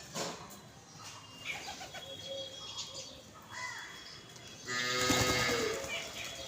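Several birds calling and chirping, with low cooing notes like a dove's, and a louder, harsher burst of sound about five seconds in.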